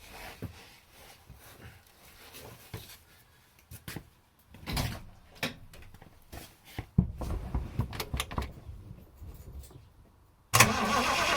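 Triumph Stag's V8 starting and running, with scattered clunks and knocks. Near the end comes a loud rustling clatter as the camera falls over.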